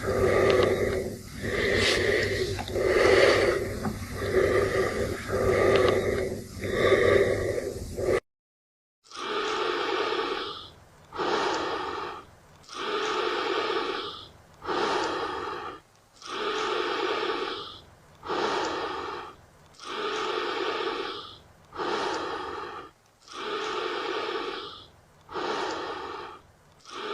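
A person breathing heavily and rhythmically in and out, in the manner of the Michael Myers breathing sound effect. The breaths come about once a second at first, stop briefly about eight seconds in, then resume slower and evenly spaced, about one every second and a half.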